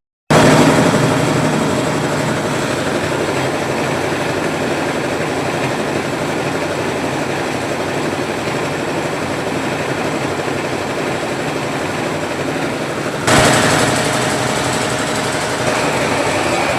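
An automatic rice milling machine running steadily as it hulls paddy into rice: a loud, continuous mechanical din with a faint steady whine. The sound drops out for a moment at the very start and jumps louder about 13 seconds in.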